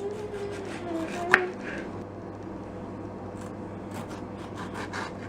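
Kitchen knife slicing tomatoes on a cutting board: a series of light taps of the blade on the board, with one sharp knock about a second in.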